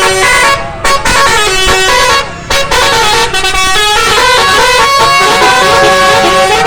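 Telolet bus horn, a multi-tone musical air horn, playing a melody: several horn notes sound together and step quickly from pitch to pitch. It breaks off briefly twice, and holds longer notes with a short upward slide in the second half.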